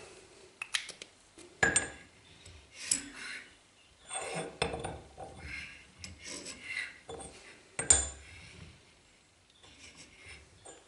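Steel parts clinking, knocking and sliding on a steel surface plate, with short scrapes of a height gauge scriber marking a centre line across a flat steel bar. Two sharper knocks stand out, about two seconds in and near the end.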